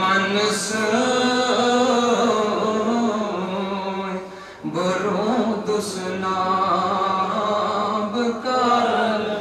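A man's solo voice chanting a devotional Sufi recitation into a microphone in long, held, melodic phrases, with a short break for breath a little before halfway.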